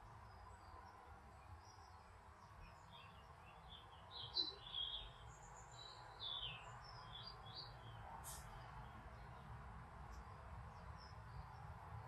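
Faint songbird chirps and short calls, bunched mostly between about three and seven seconds in, over a low steady background rumble.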